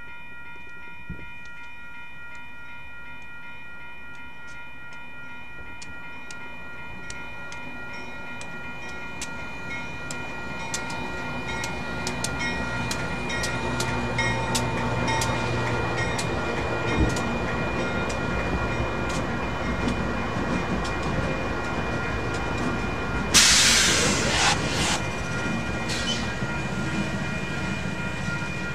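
Grade-crossing warning bell ringing in an even rhythm while freight diesel locomotives approach and pass, their engine rumble building over the first half. A loud hissing burst comes about three-quarters of the way through.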